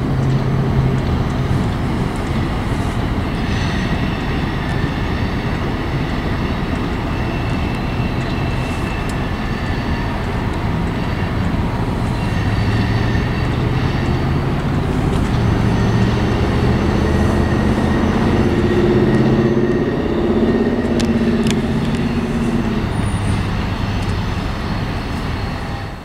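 Freight train passing: a continuous loud rumble that swells through the second half and cuts off suddenly at the end.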